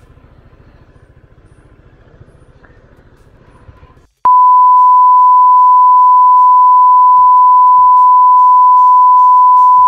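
A loud, steady 1 kHz bleep tone, a censor bleep laid over the audio, starts about four seconds in and holds. Before it there is only a faint low rumble.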